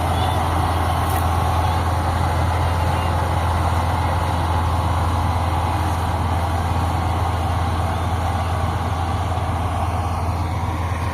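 Kubota MU5502 tractor's diesel engine running steadily with a deep, even drone.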